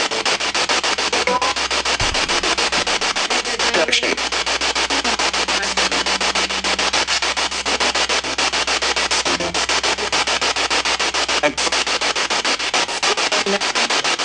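Spirit box sweeping through radio frequencies: loud static chopped into rapid, evenly spaced bursts, many a second, with brief snatches of tone and a low hum underneath.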